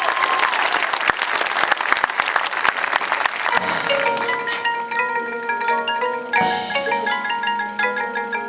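Crowd applause, a dense patter of clapping for about the first three and a half seconds, then a marching band's front ensemble of marimbas and other mallet keyboards starts playing a line of separate ringing notes, with a deep low note joining about six seconds in.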